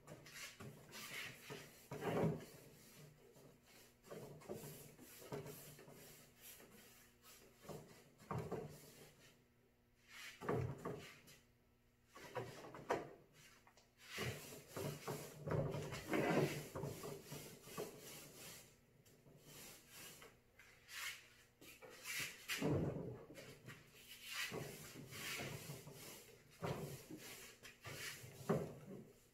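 Paintbrush strokes on painted wooden cabinet doors: irregular rubbing swishes, some louder than others, with the brush worked in and out of the paint container.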